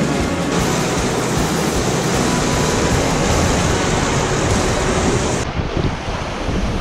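Sea surf washing and breaking over a rocky shore, a dense steady rush, with wind on the microphone; the sound changes abruptly about five and a half seconds in.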